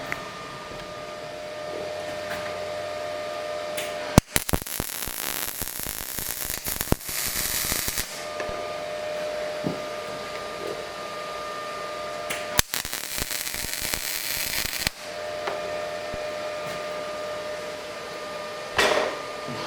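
Arc welding on a metal swing arm: two welding runs of crackling arc, the first about four seconds long and the second about two and a half, each starting with a sharp strike. A steady faint hum fills the gaps between runs.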